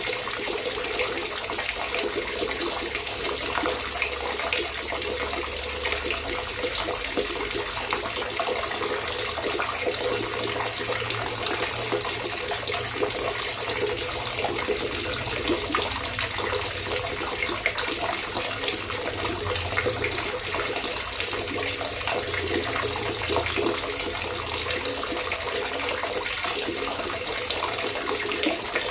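Water trickling and gurgling steadily, a continuous splashing with no pauses.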